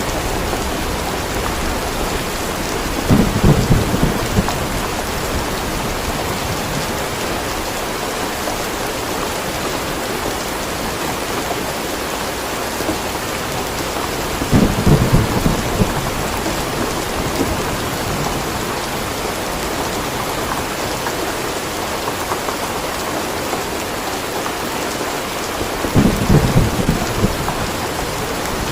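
Steady rain with three short, low rumbles of thunder, evenly spaced about eleven seconds apart.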